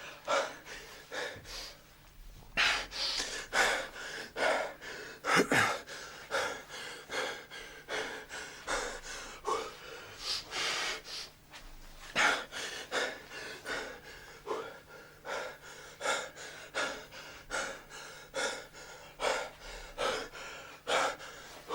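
A person breathing heavily, taking quick gasping breaths in and out about once a second, a few with a short catch of voice.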